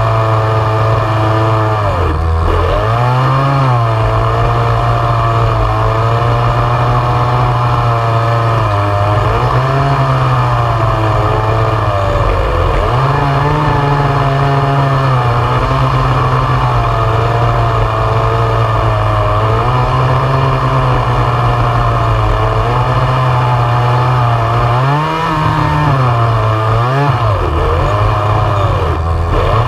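Gas chainsaw running at high revs as it cuts through a large log, its engine pitch dipping and picking back up several times as the chain loads in the wood, most deeply about two seconds in and again near the end.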